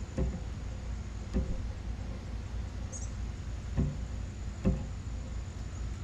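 Bird-feeder ambience: a steady low rumble with four soft taps of birds at the feeder spread across the few seconds, and one brief high bird chirp about three seconds in. A faint steady high insect trill runs underneath.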